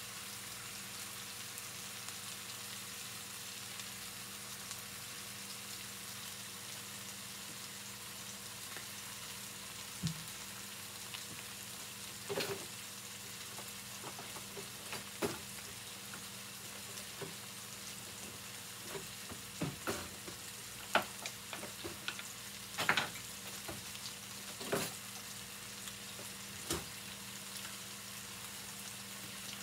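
Chicken searing in a skillet, frying with a steady sizzle. From about ten seconds in come scattered sharp clicks and taps, busiest and loudest about two-thirds of the way through.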